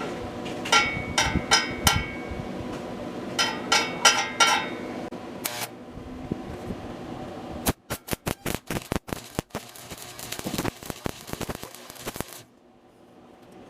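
Stick (arc) welder: a series of sharp taps as the electrode is struck against the steel to start the arc, then about five seconds of the arc crackling and spitting as a bead is laid, cutting off suddenly. The amperage is set a bit high for this weld.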